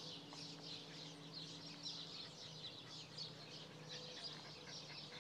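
Many small birds chirping in a quick, continuous chatter, with a faint steady hum underneath.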